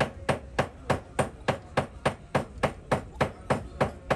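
Hammer blows on a metal rod driving burned copper windings out of an electric motor's stator, sharp metal-on-metal strikes in a steady rhythm of about three and a half a second.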